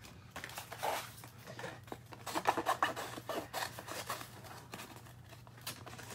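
Paper being handled on a work table: a run of short, irregular rustles and scrapes, loudest a little over two seconds in.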